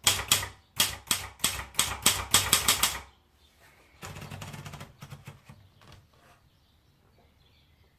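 Sperry Remington Idool typewriter being typed on: sharp key strikes about four a second for three seconds. About a second later comes a softer rattle, then a few light clicks.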